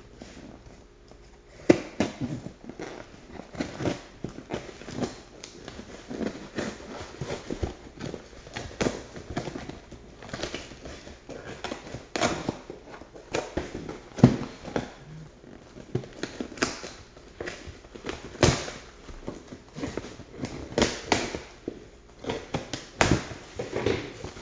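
Handling noise from rummaging through a box of tools and supplies: irregular knocks, clicks and clatter of items being picked up and set down, with rustling in between.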